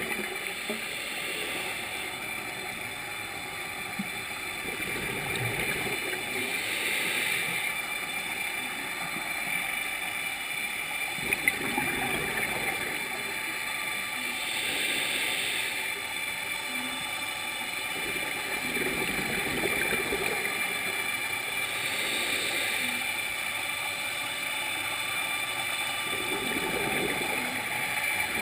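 Scuba regulator breathing underwater: an inhale hiss and a bubbling exhale that repeat about every seven or eight seconds, over a steady faint hum.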